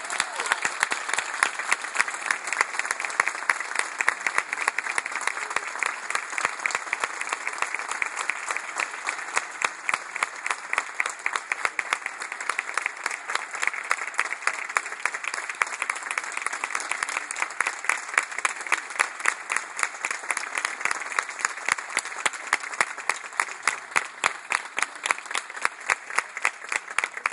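Audience applauding after the song ends, with many sharp single claps standing out above the crowd.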